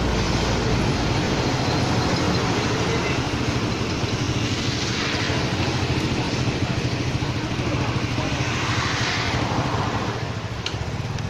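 A motor running steadily with a low hum under a broad hiss; the hiss swells twice, about five and nine seconds in.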